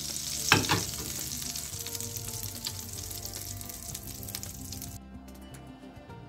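Melted butter with red pepper flakes sizzling in a small frying pan, with a knock about half a second in; the sizzle cuts off suddenly about five seconds in.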